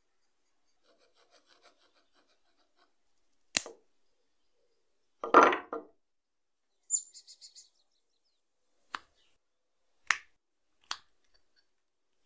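Sharp knocks and short scrapes of a peeled wooden branch and a sawn-off wooden block being handled on a wooden tabletop. The loudest is a half-second scrape about five seconds in, with faint rubbing before it and a few single clicks near the end.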